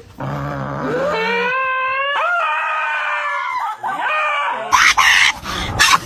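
An animal's long, wavering cry that rises and falls in pitch, starting about a second in and lasting about three seconds, followed by a few short noisy rustles.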